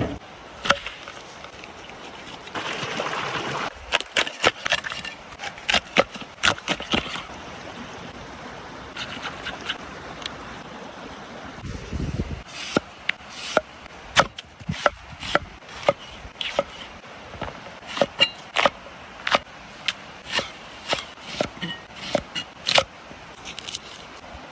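Hands-on camp cooking work: a run of sharp taps and knocks, about one to two a second through the second half, with some scraping of wood about three seconds in.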